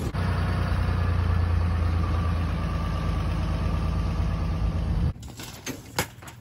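Truck engine running steadily with a deep, even hum, stopping abruptly about five seconds in. A few footsteps on dirt follow.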